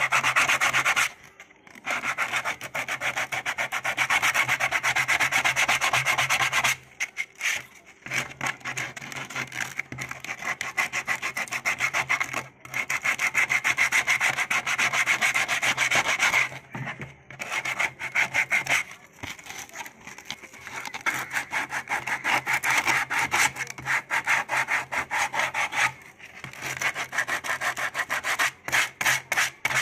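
Hand sanding or scraping the plastic shell of an old water tank: rapid back-and-forth rasping strokes, in runs broken by a few short pauses.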